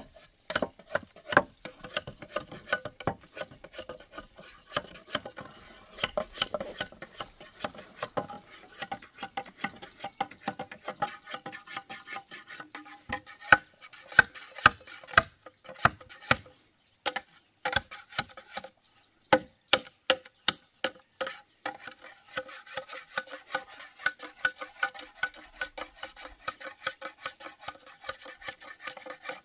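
Repeated short scraping or rasping strokes by hand, a few a second, pausing briefly about halfway through before carrying on.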